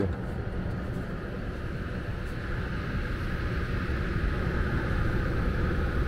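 Air handler blower running steadily, a constant rushing hum of air moving through the unit while the air conditioner runs in cooling.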